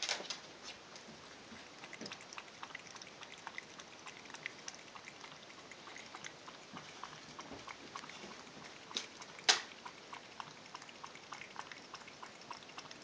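A cat lapping water from a glass goldfish bowl: a steady run of small wet ticks, several a second, with one louder click about nine seconds in.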